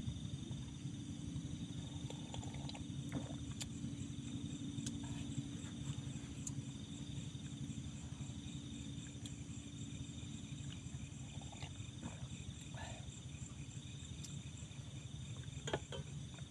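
Night insect chorus: crickets trilling steadily and high, over a low steady rumble, with a few faint scattered clicks.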